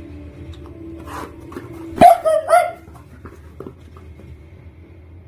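Italian greyhound barking: three short, quick barks about two seconds in.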